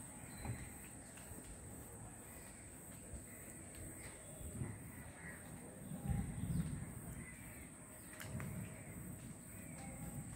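Faint crow caws now and then over a steady high-pitched drone, with a low rumble about six seconds in.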